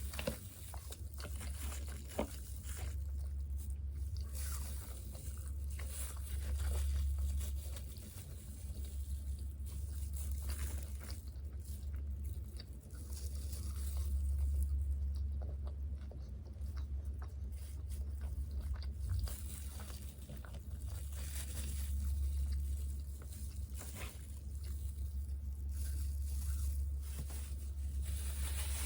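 Chewing and biting of crispy fried chicken and fries, with scattered small crunches and crackles, over a steady low hum.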